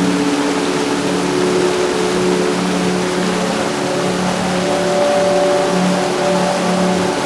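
Heavy rain pouring steadily, with a steady engine-like hum underneath that takes on a higher pitch about halfway through.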